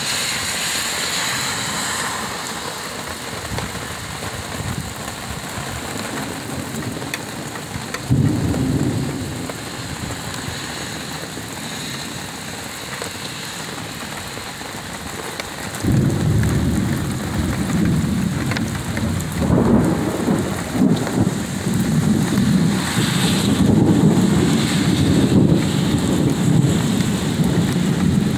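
Heavy rain pouring steadily onto wet pavement. A short low rumble of thunder comes about eight seconds in, and a longer rolling rumble starts suddenly just past halfway and grows louder toward the end.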